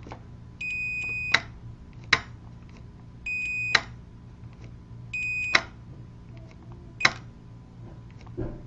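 A tester's continuity beeper sounding three times, each beep well under a second, as the converted push-button switch is pressed and its normally-open contact closes. Each beep ends with a sharp click of the switch, and there are two more lone clicks between them.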